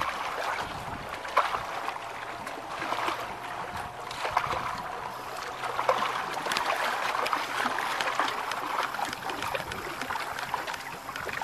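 Small waves lapping and sloshing against the hull of a small boat, a steady watery splashing with many little irregular splashes.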